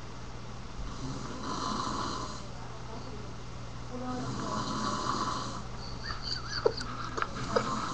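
A man snoring: two long, noisy snores about two and a half seconds apart. A few short, sharp sounds start near the end.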